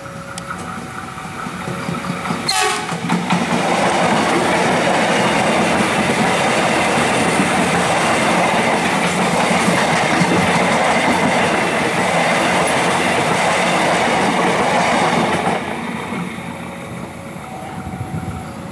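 KRL electric commuter train sounding a short horn blast about two and a half seconds in, then passing close by with loud wheel-on-rail noise for about twelve seconds. The noise drops off suddenly as the last car goes by.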